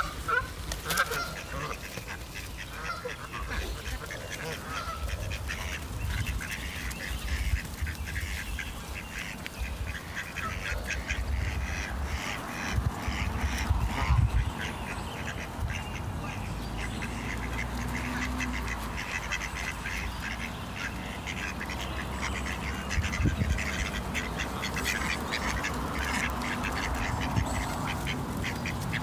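Birds calling: many short calls repeated in quick succession, growing denser about a third of the way in, over a steady low rumble.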